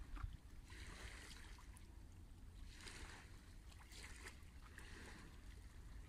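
Faint small waves washing against shoreline rocks, a soft wash about every two seconds, over a low wind rumble on the microphone.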